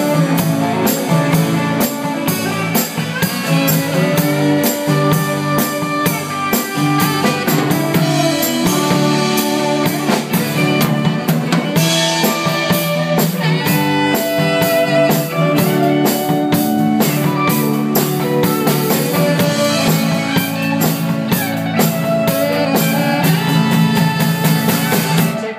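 Live band playing an instrumental passage with a steady beat: drum kit, electric bass and acoustic guitar under a tenor saxophone.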